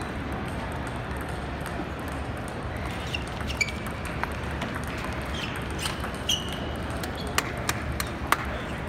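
Table tennis balls clicking sharply off bats and tables, a scattered run of hits through the second half, over the steady murmur of a large hall full of players.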